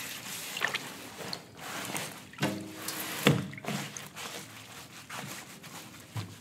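Water sloshing and dripping in a steel wheelbarrow as a water-swollen polymer flood bag is lifted and pressed back down into it, with a few short knocks against the tub.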